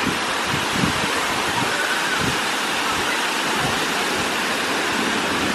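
Fountain water splashing steadily: curtains of water falling from a sculpture and small jets spouting into a shallow basin, a continuous rush with no breaks.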